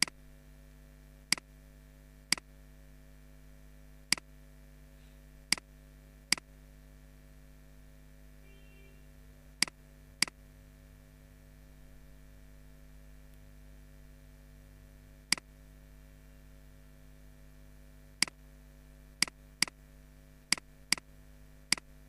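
Computer mouse button clicked about fourteen times at irregular intervals, single sharp clicks with a few closer pairs near the end, over a steady electrical hum.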